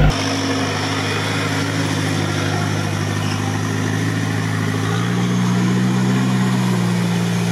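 UAZ off-road vehicle's engine running at low revs as it crawls through deep mud, the engine note stepping up about five seconds in.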